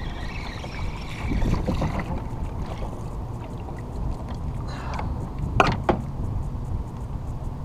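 Steady low water and wind noise on a fishing kayak, with two short, sharp sounds close together a little past halfway.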